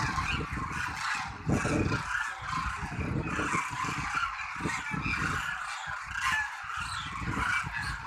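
A large flock of demoiselle cranes calling together, a dense chorus of overlapping trumpeting calls that never lets up. Wind buffets the microphone in gusts underneath.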